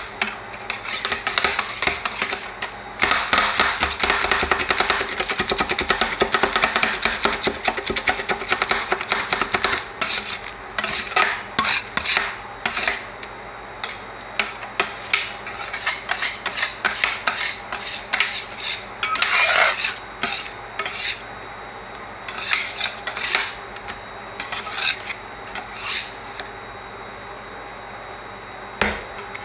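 Two steel spatulas scraping and chopping on the frozen steel plate of an ice cream roll machine, working ice cream mixed with crushed Cheetos. Rapid, continuous scraping for about the first ten seconds, then separate chops and scrapes.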